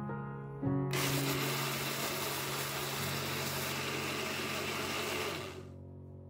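Countertop blender running, grinding soaked glutinous rice and water coarsely; it starts about a second in and stops near the end.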